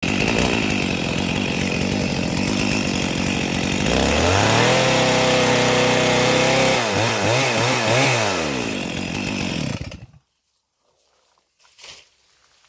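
Two-stroke chainsaw running at high revs, dropping to a lower steady speed about four seconds in. It then revs up and down a few times and shuts off about ten seconds in.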